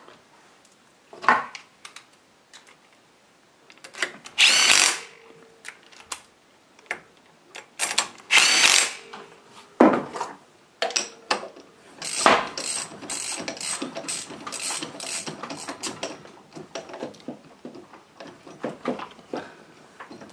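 Mechanical tool work on a motorcycle engine's top end: two brief whirring bursts about four and eight seconds in, a few sharp knocks, then several seconds of rapid clicking.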